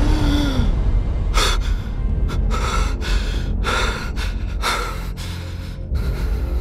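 A man gasps once, then breathes hard in quick, heavy panting breaths, roughly two a second, which stop near the end. Low background music runs underneath.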